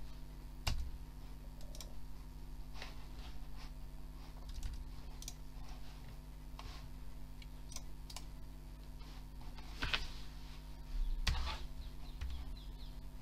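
Computer mouse clicking: short single clicks a second or more apart, over a steady low electrical hum.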